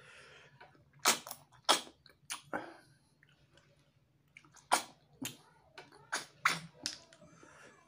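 Short, sharp sucking smacks and slurps as tutut paddy snails in spicy sauce are sucked out of their shells: four close together, a short lull, then about five more.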